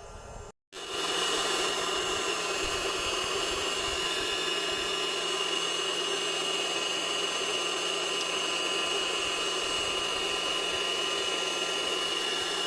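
A workshop power tool running steadily at constant speed, a high whine over a rushing noise. It starts just under a second in, after a brief break in the sound.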